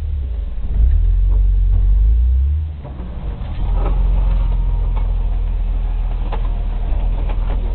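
2005 Jeep TJ's engine rumbling at low speed as it crawls over rocks, swelling for about two seconds, dropping briefly, then holding steady. Scattered short knocks and clicks run over it in the second half.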